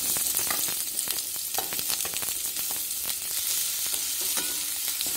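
Sliced onions sizzling as they fry in hot oil in a kadai, with a spatula scraping and clicking against the pan as they are stirred. The onions have just gone into the oil and are being sautéed.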